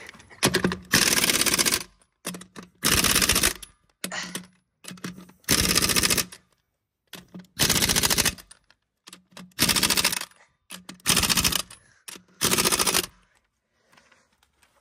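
BJC pneumatic impact wrench hammering tractor wheel nuts tight, in about eight bursts of fast rattling of about a second each, with short blips between them.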